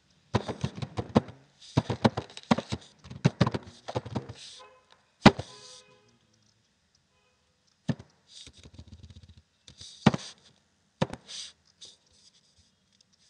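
Keystrokes on a computer keyboard, typing in quick bursts with pauses between them, and one sharper, louder key strike about five seconds in.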